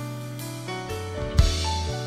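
Live Tejano band playing an instrumental passage without vocals: held notes over a moving bass line, with one sharp, loud drum hit about one and a half seconds in.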